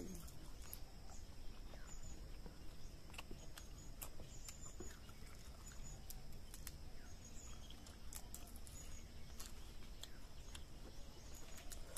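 Faint birds chirping over a steady high-pitched hum, with scattered soft clicks as raw leaves are picked apart and chewed.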